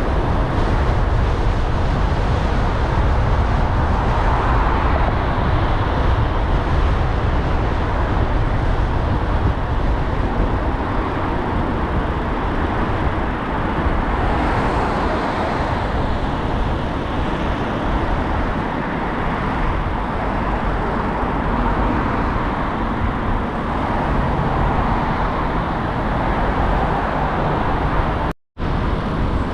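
Steady road noise of a car driving through city traffic: a deep tyre-and-engine rumble with an even hiss over it. It cuts out completely for a split second near the end.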